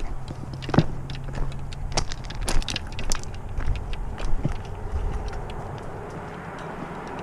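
Footsteps crunching on gravel, an irregular run of clicks and crunches, with light rattling from carried gear.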